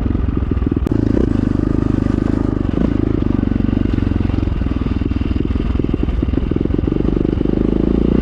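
1997 KTM 620 LC4 single-cylinder four-stroke engine running steadily through an Akrapovic exhaust, a fast, even beat of exhaust pulses.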